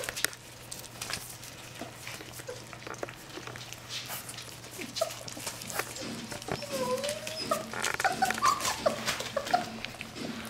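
Several puppies lapping and smacking at soft food on a plate, a steady patter of wet clicks: weaning pups on their first solid food. A few short high whines come in about two-thirds of the way through.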